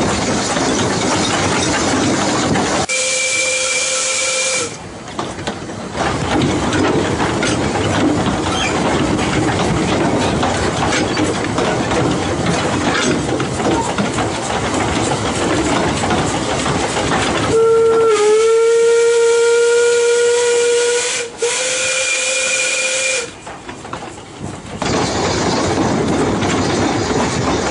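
Narrow-gauge 0-4-0T steam locomotive running along with a steady rush of working and wheel noise, sounding its steam whistle twice: a short toot about three seconds in, then a long blast from about halfway that breaks briefly near its end, as the engine passes a whistle board.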